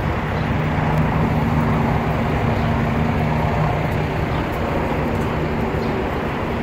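Steady city street traffic noise with a constant low hum, as from idling or passing vehicles.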